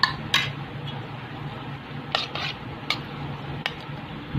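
Metal spoon stirring yogurt raita in a metal pot: a wet scraping with scattered sharp clinks of the spoon against the pot's side. A steady low hum runs underneath.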